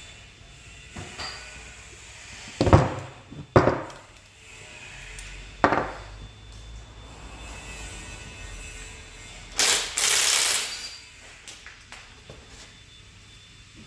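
Tools and metal engine parts knocking and clanking as an engine is stripped down, with three sharp knocks in the first six seconds. A hiss of about a second follows near ten seconds in.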